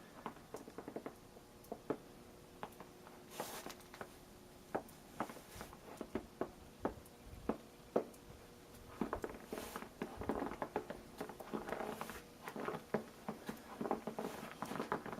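Snow on a porch carpet creaking under footsteps: irregular short crunches and clicks, sparse at first and coming thick and fast from about nine seconds in.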